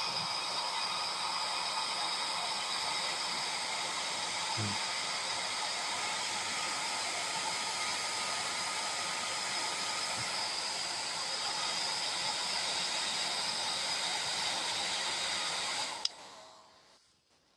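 Hair dryer blowing steadily with a faint high whine in its rush of air, switched off with a click about sixteen seconds in and quickly winding down.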